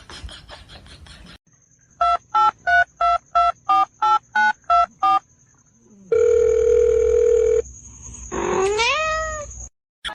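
A string of ten short telephone keypad beeps, each two tones together, about three a second, then a steady phone tone for about a second and a half. Near the end a cat meows once.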